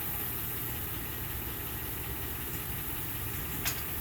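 2007 Honda Odyssey's 3.5-litre V6 idling steadily, with a single sharp click near the end.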